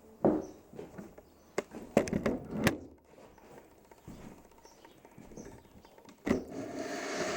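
A few handling clicks and knocks, then about six seconds in a Festool CTM 36 dust extractor starts up and runs steadily.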